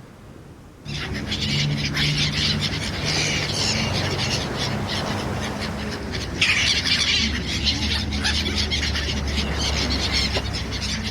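Birds squawking with loud, harsh calls that start abruptly about a second in over a steady low rumble. The squawking swells again around six and a half seconds in.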